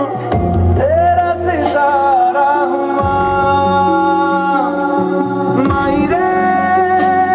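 Hindi film song played back for a dance: a singer holds long notes that slide up and down over instrumental backing.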